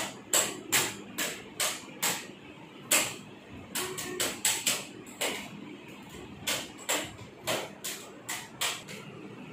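Sharp plastic clicking, about two or three clicks a second in uneven runs with short pauses, from a small toy being worked by hand.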